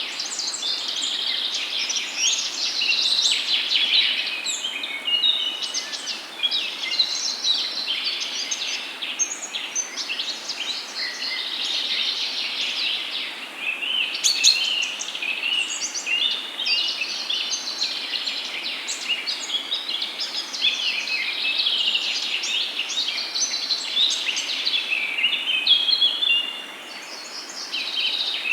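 A dense chorus of many songbirds chirping and trilling continuously, over a faint steady background hiss.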